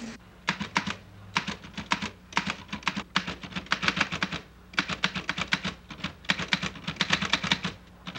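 Typewriter typing a letter: quick runs of keystrokes with short pauses between them.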